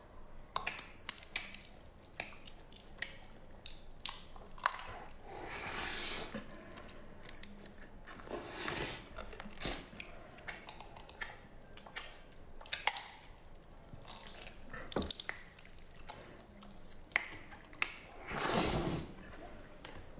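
Hands tearing apart tender braised meat on the bone close to the microphone: wet tearing and squishing with many short sharp clicks, and some chewing and lip-smacking.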